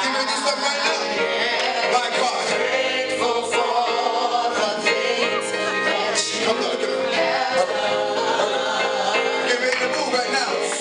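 Live gospel song: male and female voices singing into microphones over musical backing, amplified through loudspeakers.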